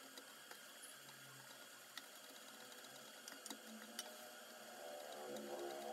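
Very faint soft scraping with a few light ticks: a wooden spatula stirring dry semolina (rava) in an aluminium electric-cooker pot as it dry-roasts.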